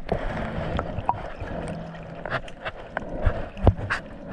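Sea water sloshing and gurgling close to the microphone while snorkeling, with scattered small splashes and a faint steady low hum.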